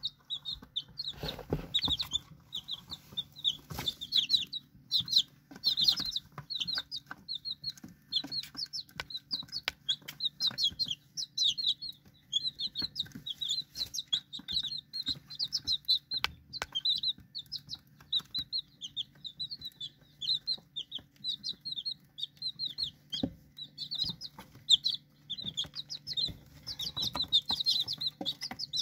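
A group of young chickens (feathered chicks) peeping continuously: rapid, high-pitched cheeps that overlap one another, over a faint steady low hum.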